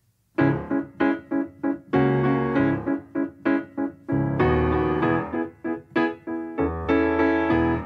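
Solo piano playing the introduction to a song, starting about half a second in with struck notes and chords.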